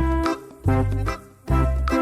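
Upbeat background music with a bouncing bass line on the beat.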